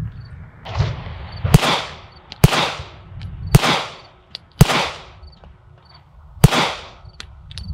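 Staccato P 2011 9mm pistol firing five shots at a slow, deliberate pace, about a second apart with a longer gap before the last, each shot trailed by a short echo.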